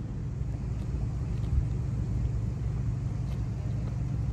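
Engine running steadily, a continuous low drone.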